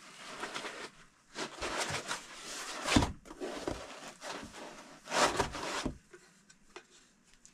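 Resin-printer build plate being pulled out of its white polystyrene foam packing: foam rubbing and scraping against the plate in several bursts, with a sharper knock about three seconds in.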